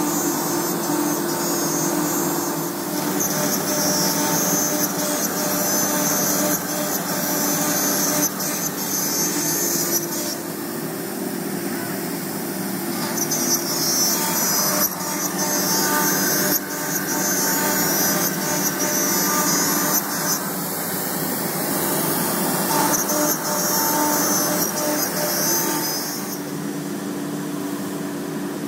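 MultiCam CNC router spindle cutting baltic birch plywood: a steady machine hum with a high cutting whine that comes and goes in stretches of several seconds as the bit works through the sheet. The whine drops away near the end.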